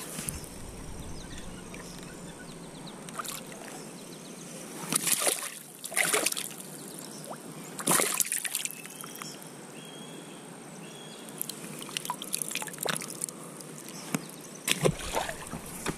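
Water sloshing and splashing in several short bursts, about five seconds in, at six and eight seconds, and twice near the end, over a steady hiss of moving water.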